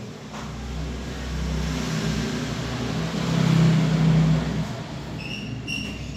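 A passing motor vehicle: a low engine rumble that swells to its loudest about four seconds in and then fades. Near the end there are a few short, high-pitched chirps.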